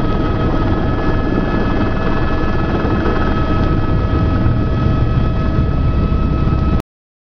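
Steady mechanical rumble with a constant high whine, cutting off abruptly near the end.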